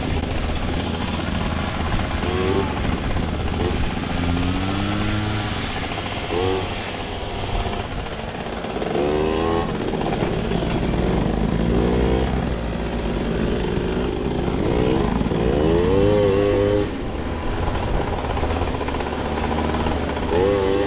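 Two-stroke moped engines running hard on a dirt trail, the pitch rising and falling again and again as the throttle opens and closes, over a steady low drone.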